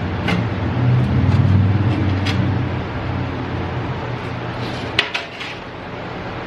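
A few sharp knocks and a louder clack about five seconds in, from salvaged pinball machine parts being handled, over a steady low rumble.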